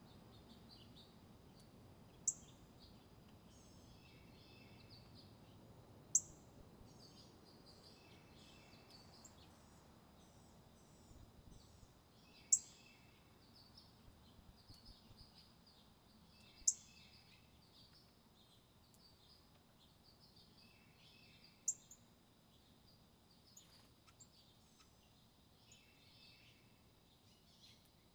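Wild songbirds calling: a sharp, high, very short call repeated five times at intervals of a few seconds, each with softer twittering chirps around it, over a faint steady high tone.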